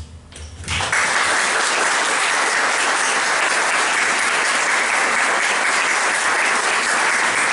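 Audience applauding, starting suddenly about a second in and holding steady.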